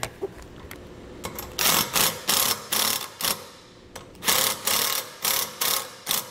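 Cordless drill/driver running in a series of short trigger bursts as it drives in the fasteners that mount a six-way trailer connector bracket, in two runs with a pause about halfway.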